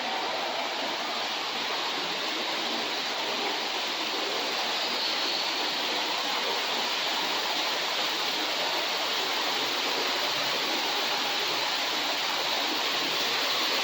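Steady rush of falling water, an even hiss that builds slightly toward the end.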